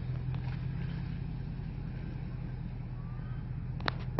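Jeep Grand Cherokee's 5.7-litre HEMI V8 with a loud exhaust, running steadily as the 4x4 approaches along the track. A sharp click near the end.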